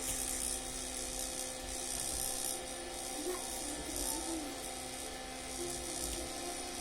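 Small electric fan running steadily, with a constant hum and an airy hiss.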